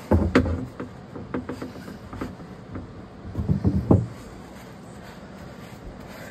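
Clatter of plumbing parts and tools being handled: a run of sharp knocks and rubbing in the first four seconds, then only a faint steady background.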